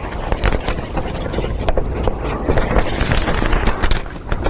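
Loud low rumble and crackling microphone noise of a poor-quality recording, dotted with small clicks and rustles as the lecturer moves.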